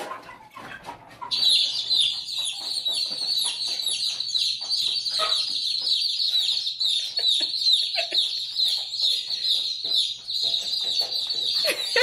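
A recording of many baby chicks peeping, played from a phone speaker. The dense, high-pitched cheeping starts about a second in and cuts off just before the end. A few lower clucks from grown broiler chickens sound under it.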